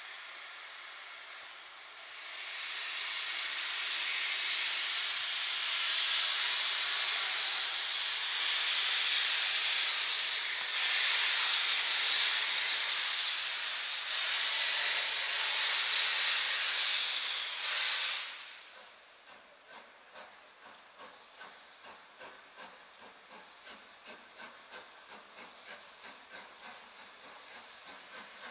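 Steam locomotive LNER K4 three-cylinder 2-6-0 starting away, with a loud steady hiss of steam from its open cylinder drain cocks that swells about two seconds in and cuts off suddenly about eighteen seconds in. After that comes a faint, even pulse of beats as the engine draws the train out.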